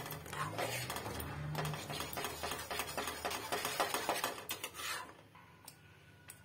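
Slotted steel spatula scraping and clinking against a steel kadhai while stirring a wet, freshly watered masala paste, with irregular scrapes and knocks that stop about five seconds in.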